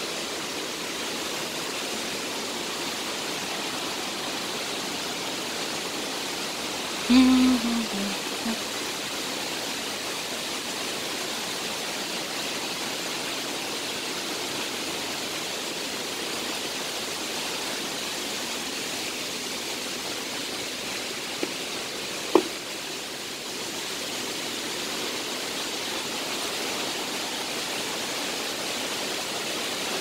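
Steady rush of a waterfall and its stream. A brief voice sound cuts in about seven seconds in, and a single sharp click comes about two-thirds of the way through.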